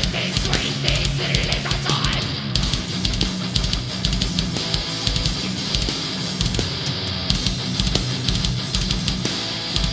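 Live groove metal band playing: distorted electric guitars over a drum kit with a steady kick drum beat.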